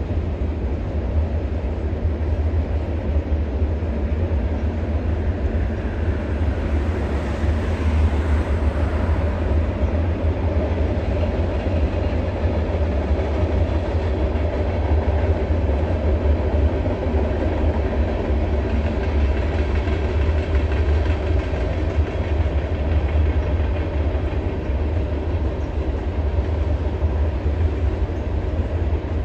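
Norfolk Southern freight train's cars rolling past at a distance, a steady low rumble throughout.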